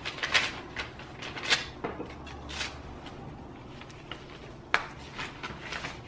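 Paper envelope and letter being handled, opened and unfolded: irregular crinkling and rustling, with one sharper crackle about three-quarters of the way through.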